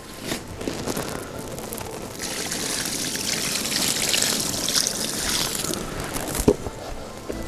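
Water splashing and streaming for a few seconds, with a few splashy clicks at the start and a single dull knock near the end.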